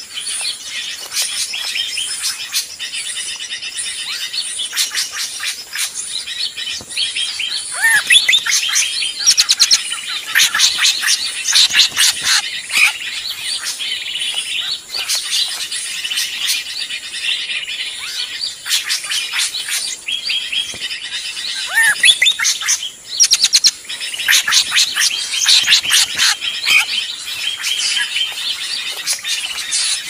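A dense, noisy chorus of many small songbirds chirping and calling over one another, with a couple of louder sweeping whistles standing out. It is a bird-trapping lure call, a 'ribut' (commotion) mix made to draw nearby birds in.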